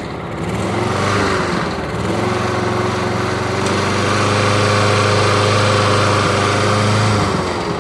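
Toro SR4 Super Recycler walk-behind mower's single-cylinder engine running. It picks up about two seconds in, holds a steady speed, then dies down near the end. The owner puts the way it runs down to a broken governor.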